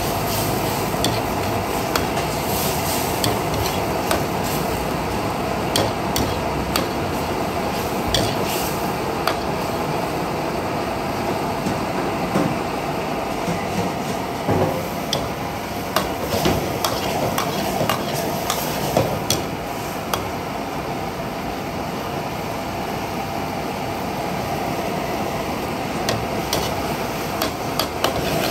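Metal ladle stirring, scraping and clinking against an aluminium wok as beef tongue in sauce sizzles and bubbles over a gas flame. Sharp clinks of the ladle on the pan come irregularly throughout, with a slightly quieter spell about two-thirds of the way through.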